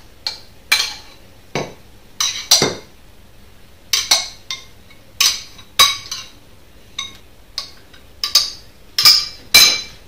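A metal spoon clinking against glass, about fifteen irregular, ringing clinks as frothed milk is spooned out of a glass jug into a glass mug. The loudest two clinks come near the end.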